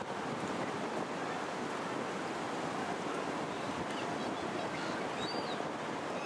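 Wind blowing across the microphone in an open Ferris wheel gondola: a steady rushing noise, with a few faint high chirps in the second half.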